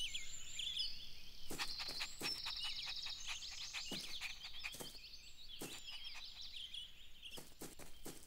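Birds chirping and trilling in a dense background chorus, made of many short calls and quick trills. A few sharp clicks are mixed in.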